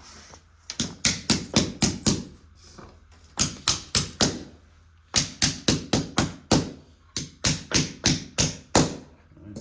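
Hammer blows in quick runs of four to seven strikes, about four a second, with short pauses between runs: nailing carpet tack strip down onto a cement floor.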